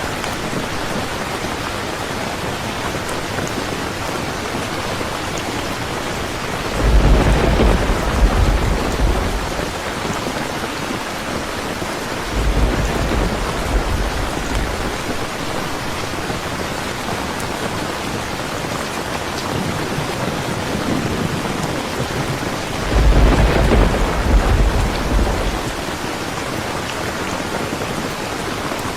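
Steady heavy rain, with three rolls of thunder rumbling over it, the first about a quarter of the way in, the second soon after, and the loudest near the end.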